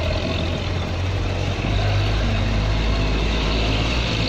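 Delivery truck's engine idling close by, a steady low rumble that grows a little stronger about a second and a half in, over street noise.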